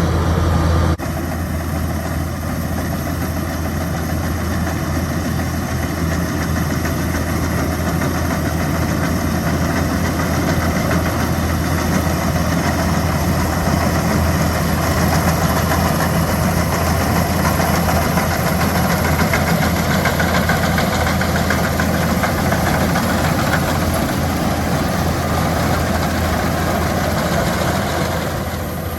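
Kubota DC-105X combine harvester's diesel engine running steadily at work, dropping a little in level about a second in.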